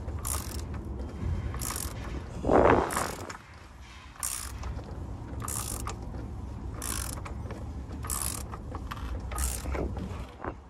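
Ratchet wrench turning the forcing screw of a Detroit DD15 rear main seal installer, clicking on each back-swing about eight times at a slow, even pace as it presses the new rear main seal onto the crankshaft. A louder, lower scraping noise comes about two and a half seconds in.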